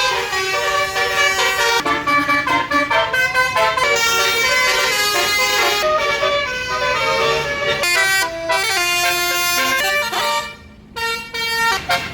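Basuri multi-tone bus horn ("telolet") playing a melody of quickly stepping notes, with a short break about ten and a half seconds in.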